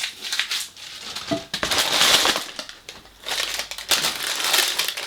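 Paper and cardboard takeaway packaging crinkling and rustling as food containers are handled and unpacked, in two surges with a short lull between.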